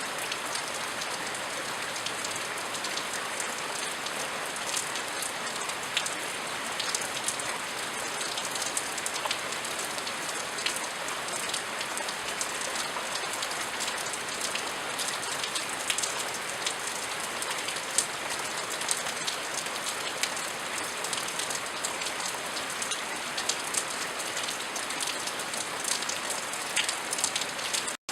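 Steady rain falling, with many scattered sharper drip ticks and no thunder. The sound drops out for an instant near the end.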